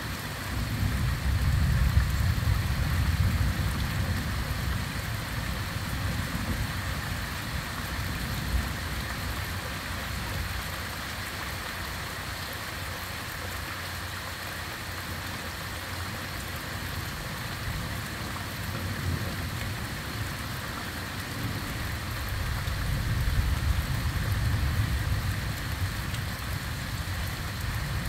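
Heavy rain falling steadily, with a low rumble that swells in the first few seconds and again near the end.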